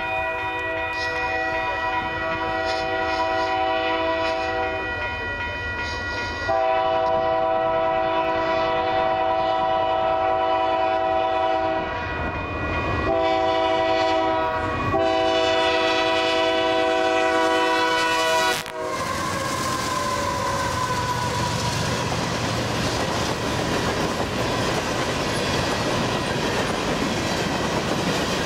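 A CP GE AC4400CW locomotive's multi-chime air horn blowing the long, long, short, long grade-crossing signal. After the last long blast the two GE diesel locomotives pass, followed by empty grain hopper cars rolling by with a steady clickety-clack of wheels on rail joints.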